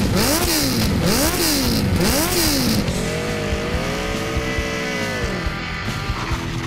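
Motorcycle engine revved hard three times in quick succession, its pitch rising and falling each time, then running at a steadier pitch as the bike pulls away, the pitch dropping off near the end.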